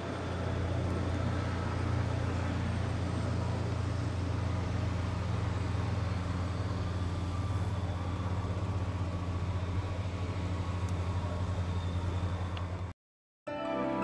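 Aerospatiale AS350B Ecureuil helicopter running on the ground: a steady drone from its turboshaft engine and turning rotor. Near the end the sound cuts out and music begins.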